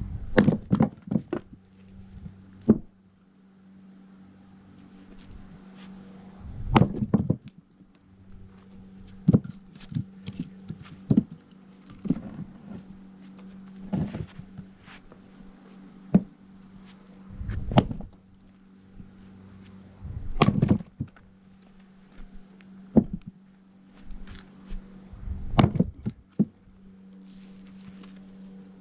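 Axe with a wooden handle striking oak logs over and over to split them into firewood: sharp, heavy chops at irregular intervals, some close together and some several seconds apart. A steady low hum runs underneath.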